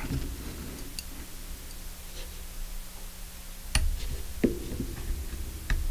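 A few small sharp clicks and taps as a flex-cable connector bracket inside a Canon 60D camera body is worked loose and lifted, the loudest click with a dull knock about four seconds in.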